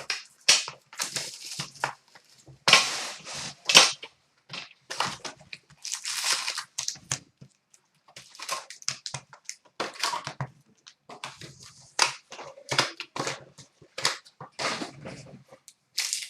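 Plastic wrapping on a box of trading cards and its packs being torn open and crinkled by hand, in irregular rustling rips.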